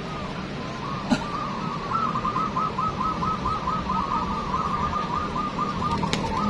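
Zebra doves cooing: a fast run of rolling, repeated notes, about four a second, with a sharp click about a second in and another near the end.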